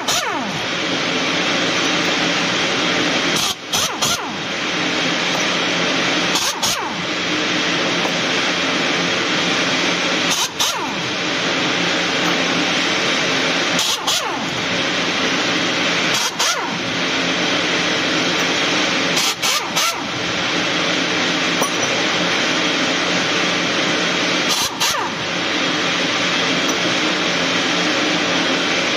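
Pneumatic impact wrench working the bolts of a Sinotruk AC16 truck axle's differential housing. It runs in long spurts with brief breaks every few seconds, over a steady loud mechanical drone.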